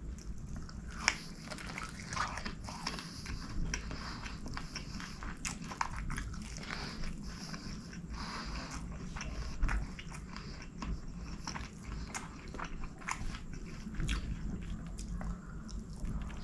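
Close-miked eating sounds of a person eating rice and curry with his hand: irregular wet chewing and mouth clicks, with a louder smack about a second in and another near ten seconds.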